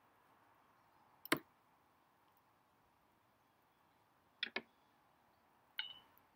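A kitchen knife chopping marrow on a wooden chopping board: a sharp knock about a second in and two quick knocks around four and a half seconds in. Near the end comes a last click with a brief high ring.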